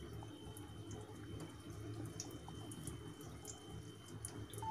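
Kachoris deep-frying in hot oil in a pan: a faint, steady sizzle with scattered small crackles.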